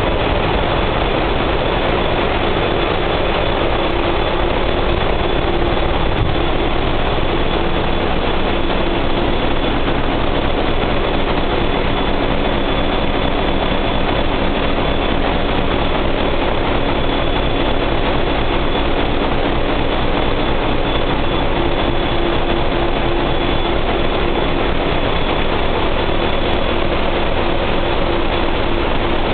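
Steady, loud machinery din in the engine room of a diesel-electric cruise ship, from the diesel generator sets running. A constant hum runs through it, with a faint high whine on top.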